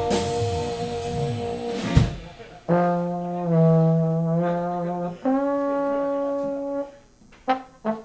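Live klezmer-punk band: the full band plays, then stops about two seconds in, and the horns (trombone and saxophone) hold two long notes of about two seconds each, followed by a few short stabs with gaps between them.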